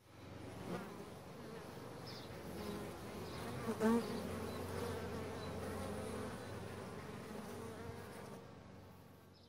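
Bees buzzing steadily, fading out near the end.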